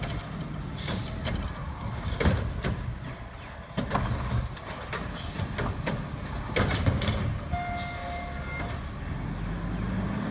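Garbage truck with a Curotto-Can automated arm running at the curb while the arm handles a cart, with a series of sharp clanks and knocks. A steady beep sounds for about a second partway through, and near the end the engine revs up with a rising note as the truck pulls away.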